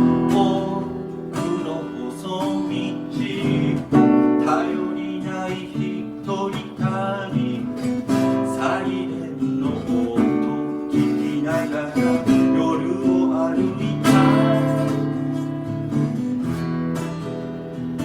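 Acoustic guitar strumming chords in an instrumental break of a song, with strong strums about four seconds in and again near fourteen seconds.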